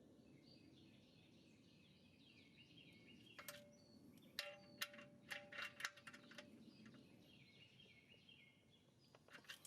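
Near silence, broken in the middle by a few faint metallic clinks and ticks, a couple of them ringing briefly like struck metal. Faint bird chirping sits in the background.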